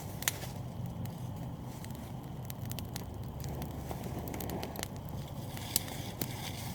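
Small campfire of cardboard and dry wood burning and crackling, with scattered sharp pops over a low steady background.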